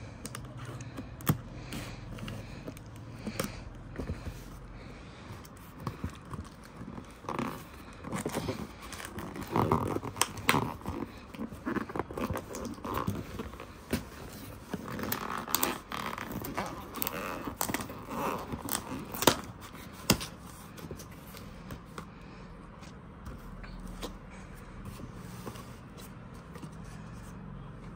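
A cardboard box being opened and handled by hand: scraping, rustling and sharp clicks of cardboard flaps and packing. The sounds come in irregular bursts and are busiest in the middle stretch.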